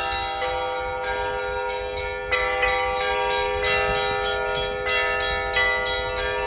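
Russian Orthodox church bells rung by hand in a Sunday peal: repeated clapper strikes on several bells of different pitches, their tones overlapping and ringing on.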